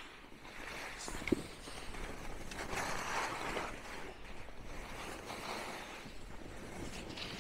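Skis hissing and scraping over packed snow on a groomed run, swelling and fading with each turn, with one short knock about a second in.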